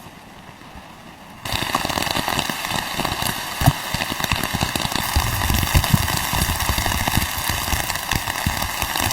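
Steady rain pattering, starting abruptly about a second and a half in after a quieter moment, with a few louder knocks among the drops.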